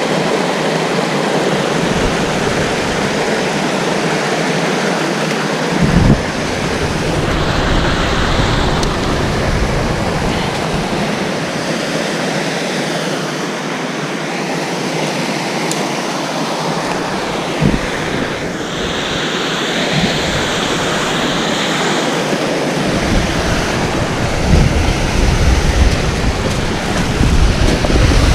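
Waterfall rushing steadily and loudly, with wind rumbling on the microphone at times and two brief knocks.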